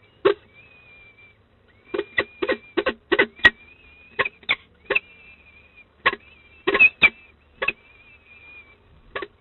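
Peregrine falcon chicks begging with thin, high, drawn-out peeps while being fed at the nest, over irregular sharp clicks and knocks from the feeding at the gravel nest box, about fifteen of them, in clusters.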